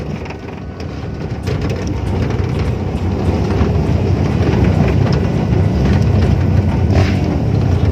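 Pickup truck driving on a rough dirt road, heard from its open bed: a steady low rumble of engine, tyres and wind, growing louder over the first couple of seconds, with a few knocks and rattles from the bed.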